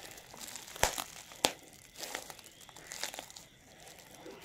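Plastic bubble wrap crinkling as a hand grips and pulls a bubble-wrapped package in a cardboard box. Two sharp snaps come about a second in and again half a second later.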